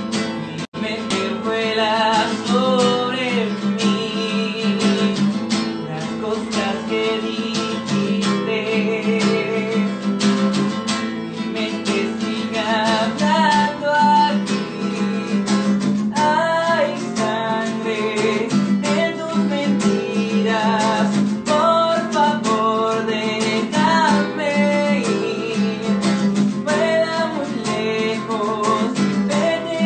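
A man singing to his own strummed acoustic guitar, with steady chord strumming under the voice.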